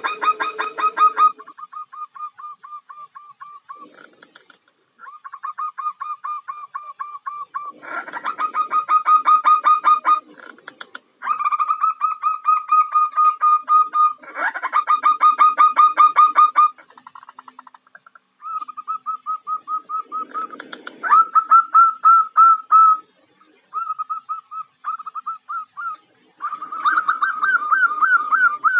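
Zebra dove (perkutut) calling over and over. Runs of rapid, repeated short notes alternate with harsher rattling bursts, with short pauses between the phrases. It is presented as a female's call to lure males.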